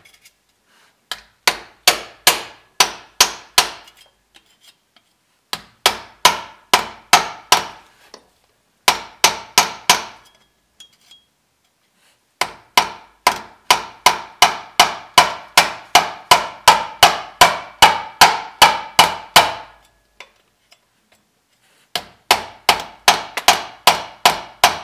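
Hammer striking a putty knife wedged between a Jeep Dana 44 differential cover and the axle housing, driving it in to break the cover's gasket seal. The strikes come about three a second in several runs separated by short pauses.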